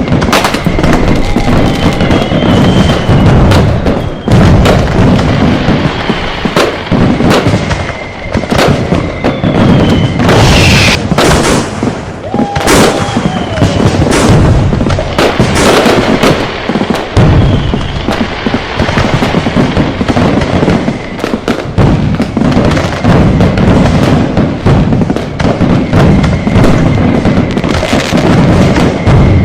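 A dense, continuous barrage of firecracker and firework bangs going off on top of one another, with short falling whistles from whistling fireworks cutting through several times.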